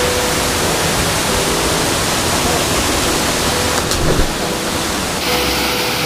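Steady rush of a waterfall pouring into a plunge pool, with a brief thump about four seconds in.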